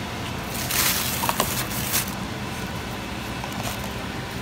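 Takeout food packaging rustling and crinkling as containers are handled, in a few short bursts, the strongest a bit under a second in.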